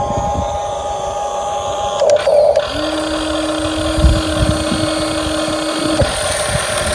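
Small electric motors of a Huina 1550 RC excavator whining as it works. A lower steady whine joins from about three to six seconds in, over some low knocks.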